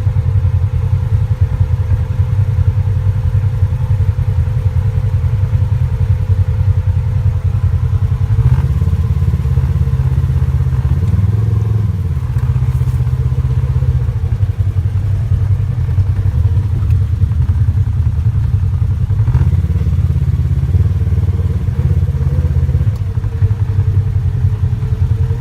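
ATV engine running continuously, its note changing several times as the throttle varies.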